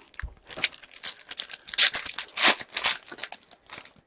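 Wrapper of a 2017-18 Upper Deck Series 1 hockey card pack being torn open and crinkled by hand: a quick string of crackling rips and crumples, loudest in the middle.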